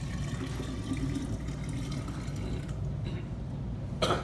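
Liquid glaze sloshing and pouring inside a ceramic vase as it is tilted and rolled to coat the inside, with a sharp knock near the end.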